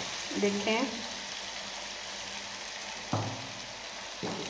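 Chicken masala sizzling as it fries in a wok while a wooden spoon stirs it, with two sharp knocks, about three seconds in and again near the end.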